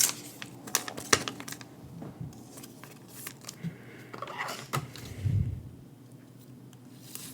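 Pokémon trading cards being handled at a desk: scattered light clicks and short rustles of card stock and packaging, with a soft thump about five seconds in.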